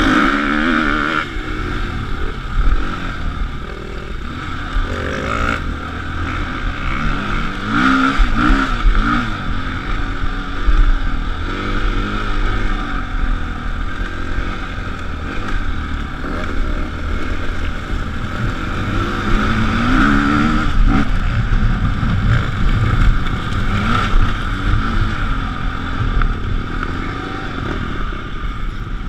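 Dirt bike engine running as the rider rides a dirt trail, its pitch rising and falling with the throttle and revving up noticeably a few times.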